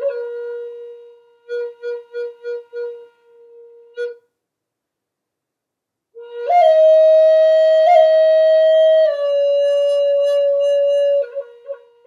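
Solo flute-like wind instrument playing a slow melody: a held note fading out, a run of five short repeated notes, a pause of about two seconds, then a long held note that steps down a little and carries on, with short notes again near the end.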